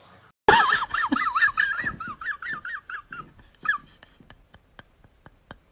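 A high-pitched laugh that starts suddenly about half a second in, its pitch wobbling rapidly, dying away after about three seconds. It is followed by soft, regular clicking, about four to five clicks a second.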